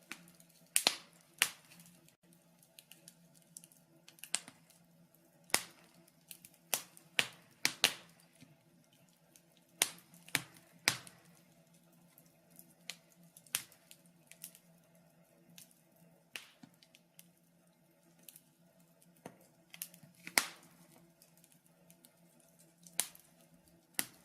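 Irregular sharp clicks and pops, unevenly spaced a fraction of a second to a few seconds apart, over a steady low hum.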